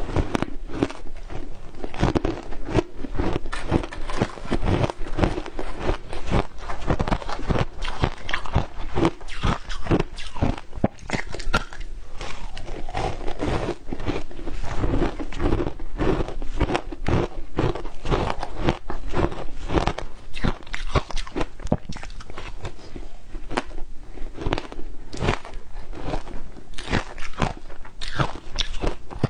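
Crunching and chewing of frozen matcha ice in the mouth, picked up close by a clip-on microphone: one crisp crunch after another, several a second.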